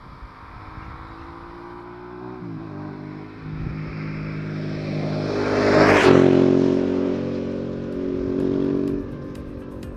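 Ducati Multistrada DVT's V-twin, breathing through a Mivv Speed Edge exhaust with its dB killer fitted, accelerating past. Its note rises and dips once about two and a half seconds in. It is loudest about six seconds in, where the pitch drops as it goes by, then swells once more and fades as it rides away. Background music comes in near the end.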